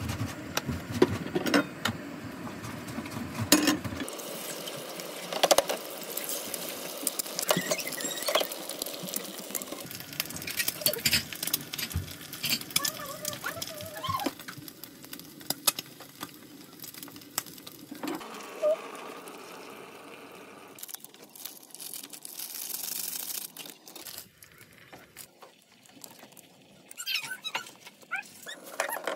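Kitchen cooking sounds: oil and eggs sizzling in a frying pan, with frequent clicks and knocks of chopsticks and utensils against a stainless steel pot.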